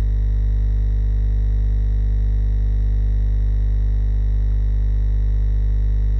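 Loud, steady electrical mains hum at 50 Hz with a stack of its overtones, unchanging throughout.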